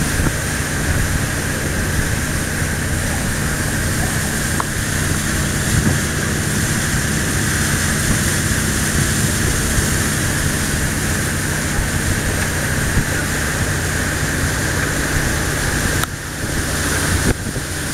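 A wooden river boat's engine running steadily under way, a constant low drone, mixed with water rushing past the hull. The sound dips briefly near the end.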